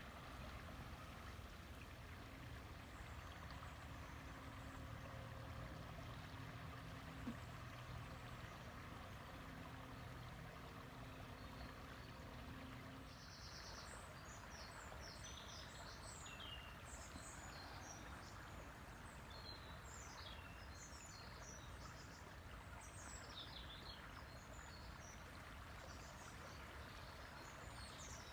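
River water flowing with a steady, soft rush. A faint low hum runs under it and stops about halfway through, after which small birds chirp and twitter on and off.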